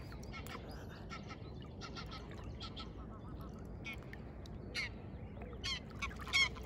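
Waterfowl calling: scattered short calls, coming more often and louder near the end, over a steady low background rumble.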